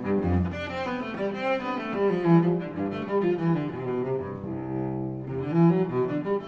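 Background music: a slow melody played on bowed strings in the cello range, with one long held note about two-thirds of the way through.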